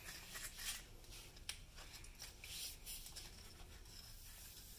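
Faint, irregular short hissing and rubbing strokes from hand work on a truck's wheel hub, as WD-40 is applied to the freshly de-rusted hub mounting area.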